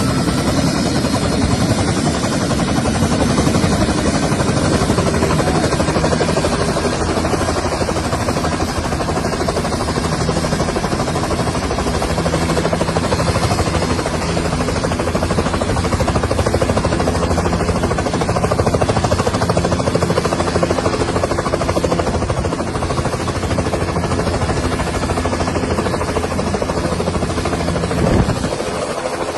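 Helicopter running, a loud, steady fast beat of the rotor over the engine's drone, briefly louder near the end.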